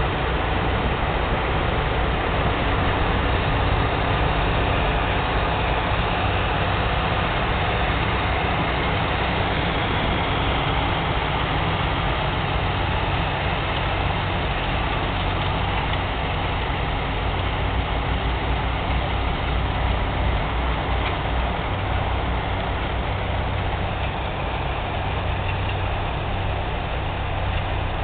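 Farm tractor's diesel engine running steadily under load as it pulls a 12-row sugar beet topper through the rows, a constant low drone with the topper's whirring mixed in.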